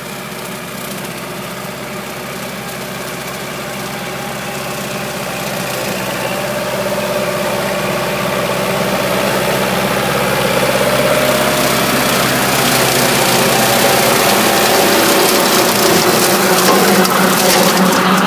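Kubota L5018 50 HP diesel tractor engine running steadily while its PTO-driven rotary mower cuts tall grass. It grows steadily louder as the tractor draws closer.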